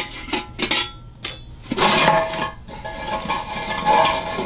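Wooden neck and neck stick of a vintage steel-body Dobro resonator guitar being worked loose and pulled out of the body, knocking and scraping against the metal shell. The shell clinks and rings. A short rattle comes about a second in, then a longer scrape with the body ringing.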